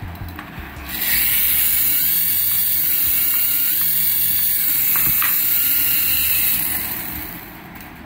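Small electric motor of a toy RC helicopter whirring as its rotors spin, starting about a second in, running steadily, then winding down near the end.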